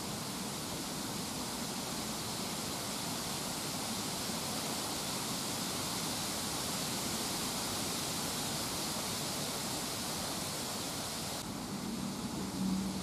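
Steady outdoor hiss with a high, even band of noise that cuts off about eleven seconds in. Near the end a low buzz comes in, like a fly flying close past.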